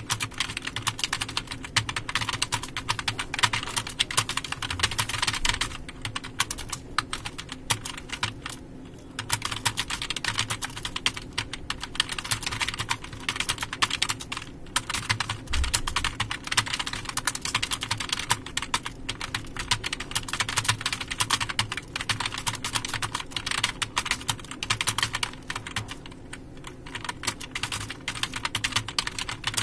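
Fast, continuous typing on a computer keyboard: a steady stream of key clicks, with short pauses about nine seconds in and again a few seconds before the end.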